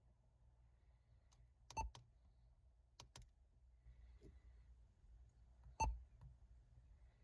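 Near silence broken by a handful of short, sharp beeps from the ATOTO F7 car stereo head unit's touchscreen as it is tapped: a pair about two seconds in, another pair about three seconds in, and the loudest one near six seconds in.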